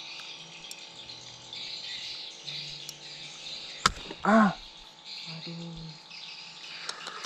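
Birds chirping over a steady high hiss. A sharp click comes a little before the middle, followed at once by one short, loud call, the loudest sound.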